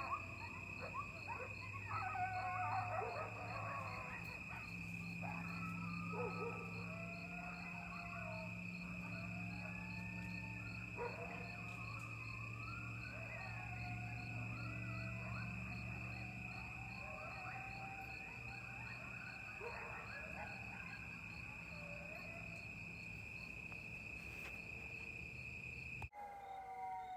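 Coyotes yipping and howling together in a chorus of wavering, gliding calls, over a steady ring of crickets and a low hum of distant highway traffic. Near the end the chorus cuts off abruptly and new howls begin.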